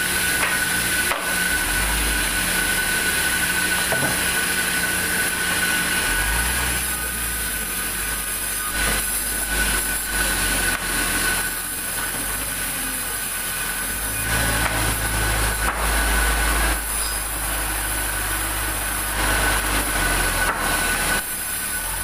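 Large vertical band saw cutting big timber: a steady high-pitched blade whine over the rasp of the blade in the wood. The low rumble swells and eases several times as the piece is pushed through.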